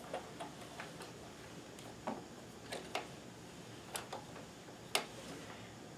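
Irregular small clicks and taps of hard plastic and metal parts being handled at a Kenmore sewing machine while a walking foot attachment is fitted, about eight in all, the sharpest near the end.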